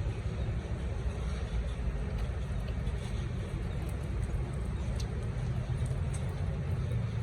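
Steady low rumble of road traffic in a city street.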